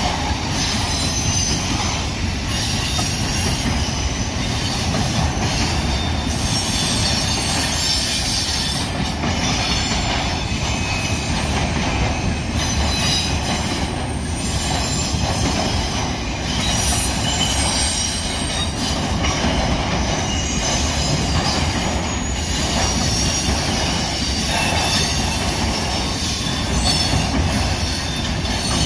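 Union Pacific intermodal freight train's cars rolling past at steady speed: continuous loud wheel-on-rail noise with flickering high-pitched wheel squeal and the clack of wheels over rail joints.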